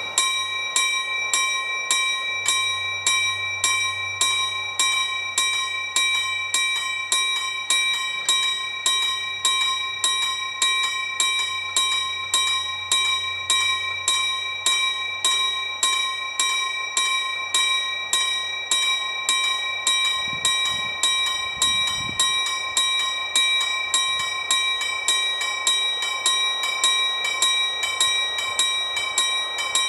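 Level-crossing warning bell ringing steadily, about two strikes a second, warning that a train is approaching while the red lights flash and the barriers lower.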